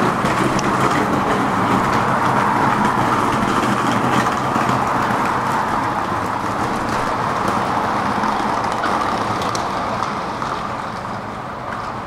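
Road traffic noise, a steady rush that swells and then eases off about ten seconds in.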